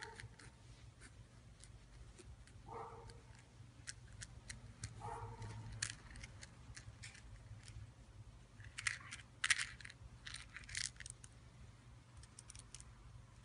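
Scattered sharp clicks and crinkly rustles of a kitten playing with a toy mouse on a plastic-backed pad, denser and louder about nine to eleven seconds in.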